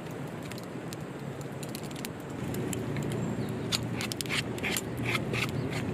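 Sharp clicks and scraping from something being handled, getting denser and louder about halfway through, over a steady low hum.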